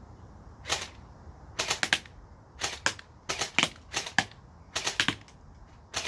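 Airsoft gun firing at a home-made cardboard-and-polystyrene riot shield in short bursts: groups of one to several quick, sharp snaps about every half second to a second, with the BBs striking the shield.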